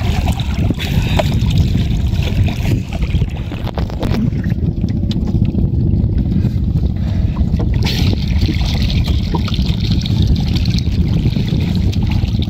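Wind rumbling steadily on the microphone, with a few light clicks and knocks as hands handle prawns and net on the wooden boat.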